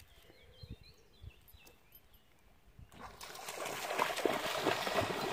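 German shepherd running through shallow river water, its legs splashing hard. The splashing starts suddenly about three seconds in and keeps going as a loud, churning noise.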